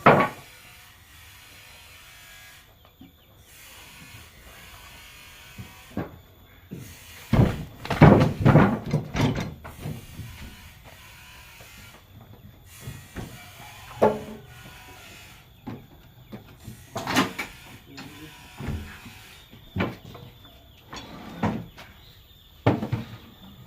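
Irregular knocks and scrapes, with a loud burst of clattering impacts about eight seconds in.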